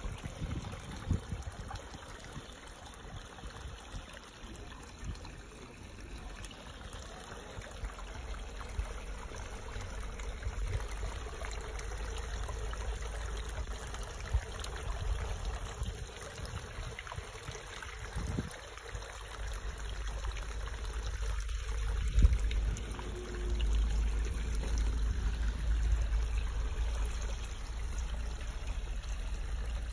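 Water from a small garden stream running down over rocks and spilling into a pond, a steady trickling and splashing. A low rumble on the microphone grows in the second half, with one sharp bump about two-thirds of the way through.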